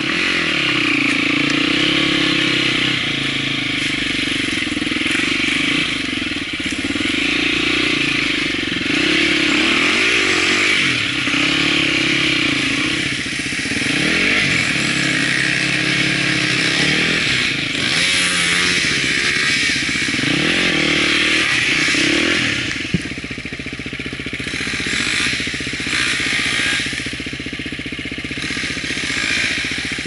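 Enduro motorcycle engines revving, the pitch rising and falling again and again as the bikes ride and cross the river. A sharp knock comes about 23 s in, and after it the engine sound settles to a steadier, quieter run.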